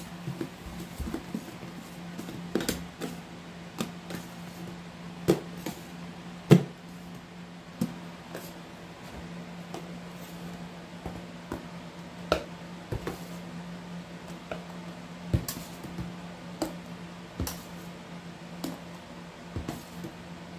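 A scoop and a stirring utensil clicking and tapping against the basin while thick, foamy baking-soda paste is mixed. The taps are scattered, about one or two a second, over a steady low hum.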